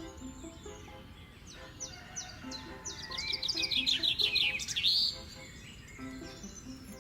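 Small songbird chirping with quick downward-sweeping calls, then a loud rapid trill for a couple of seconds near the middle, over soft background music.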